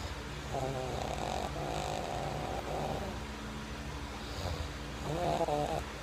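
A man snoring in an odd, voice-like way: high, wavering tones, a run of three from about half a second in to about three seconds in, and another about five seconds in, over a steady low hum.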